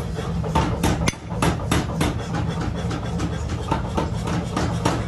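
Hammer blows on steel in a forge, sharp metallic strikes coming irregularly a few times a second over a steady low hum.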